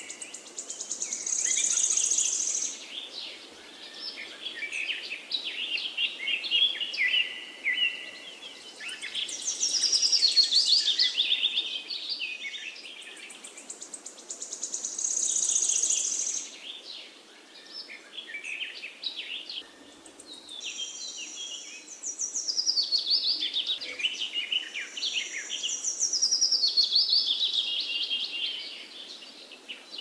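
Songbirds singing: bursts of high, rapid chirps and trills that come back every few seconds, over a faint steady background hum.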